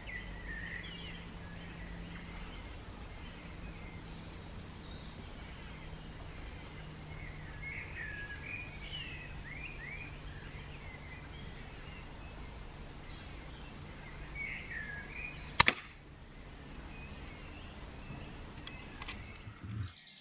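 Small birds chirping over a low steady hum, then about three-quarters of the way through a single sharp crack of an FX Impact X .177 PCP air rifle firing. A fainter click follows near the end.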